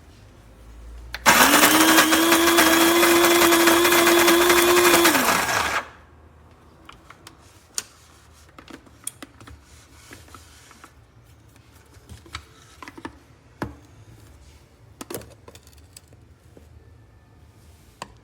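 FOHERE electric flat-burr coffee grinder's motor starting about a second in, running at a steady pitch for about four and a half seconds, then winding down. Scattered light clicks and taps follow.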